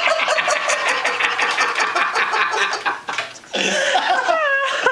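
People laughing hard in a long, rapid run that breaks off about three seconds in, followed by a few high, gliding voice sounds.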